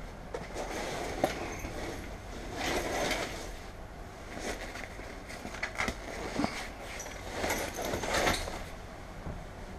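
International VT365 V8 diesel idling with a steady low hum, heard from inside the bus. Over it come irregular footsteps, clothing rustle and clattering knocks against the seats, loudest about three seconds in and again near eight seconds.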